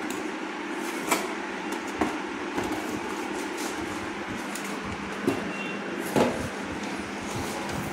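Cardboard box and packaging being handled: a few sharp knocks and taps of cardboard, the loudest about six seconds in, over a steady background hum.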